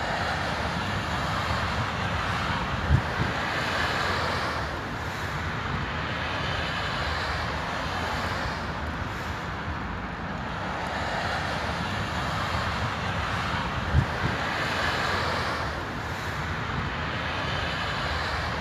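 Street traffic noise, with cars passing by in slow swells. Two brief low thumps stand out, about eleven seconds apart.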